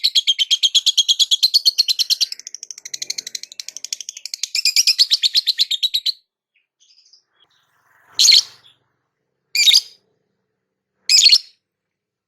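Lovebird chattering in a long, fast, even trill for about six seconds, then falling silent, followed by three short harsh calls about a second and a half apart near the end.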